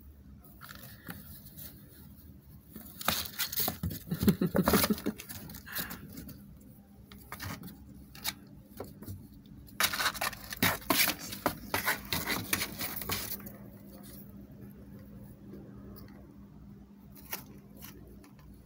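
Scraping and rustling on a cardboard box in two bursts: the first about three seconds in, the second about ten seconds in and lasting a few seconds.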